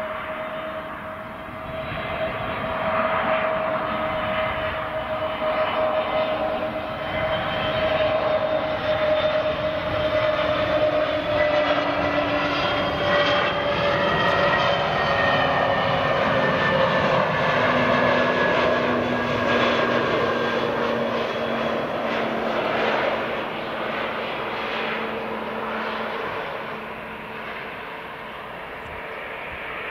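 Airbus A320neo's twin turbofan engines on final approach, a steady jet whine over a rush of air. It grows loudest about midway as the aircraft passes, its pitch sliding down, then fades as the jet flares over the runway.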